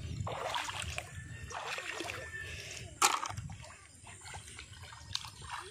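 Shallow pond water splashing and sloshing in irregular bursts, with one sharp knock about three seconds in.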